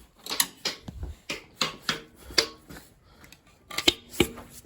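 Light metallic knocks and clicks of a steel tool tapping and prying at a main bearing cap on a small-block Chevy 350, working it loose. The knocks come irregularly, about two or three a second, and a few leave a short ringing tone.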